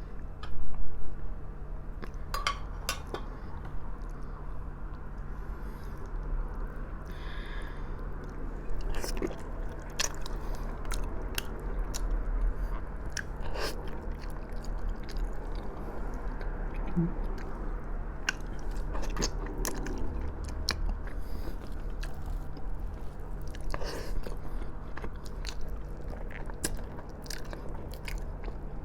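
Close-up mouth sounds of eating braised pork trotter: chewing and biting with many small wet clicks, the meat described as very tender. A brief loud knock about a second in, over a steady low hum.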